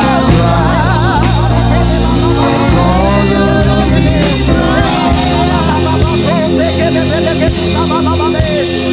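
Live gospel praise music: a worship band with drums and bass playing on, and a sustained, wavering sung vocal over it.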